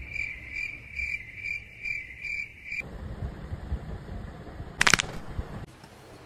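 Crickets chirping in an even pulse, about two chirps a second, for the first three seconds. It then cuts to a steady noisy hiss broken by a brief, very loud sharp sound about five seconds in.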